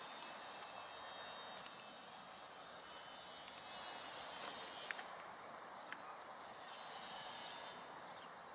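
Faint outdoor ambience: a steady high hiss with a few thin high tones coming and going, and two sharp clicks about five and six seconds in.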